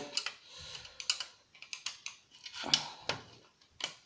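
A screwdriver and the metal and plastic parts of a set-top box recorder being handled, giving irregular light clicks and knocks, about six of them.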